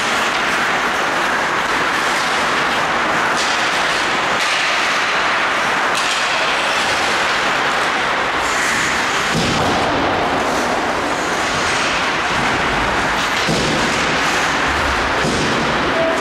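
Ice hockey rink ambience during play: a steady, loud noisy wash of hall sound with a few faint knocks.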